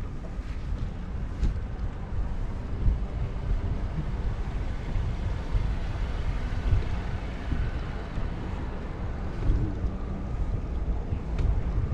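Wind buffeting the microphone of a camera on a moving bicycle: a gusty low rumble that rises and falls.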